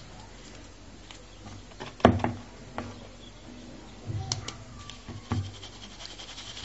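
Flour and cocoa powder being sifted through a plastic sieve over a bowl with a spoon: soft rubbing with a few knocks, the loudest about two seconds in.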